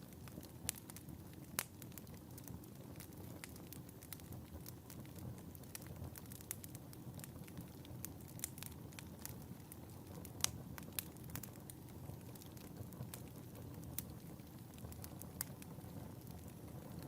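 Wood fire burning in a fireplace: a steady low rumble of flames with frequent irregular crackles and pops, the sharpest pop about ten seconds in.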